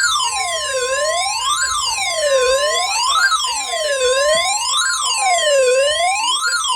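Weather radio alert during a NOAA Weather Radio weekly test: a steady high alert tone under a loud electronic siren that sweeps down and back up about every second and a half.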